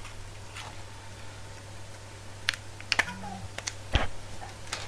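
A few sharp plastic clicks and crinkles as a small plastic sauce cup and its wrapping are handled, with a dull knock about four seconds in, over a steady low hum.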